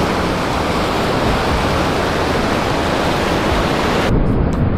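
Small ocean waves breaking and washing up the sand around the microphone: a steady rushing surf. About four seconds in it changes abruptly to a duller, muffled rush.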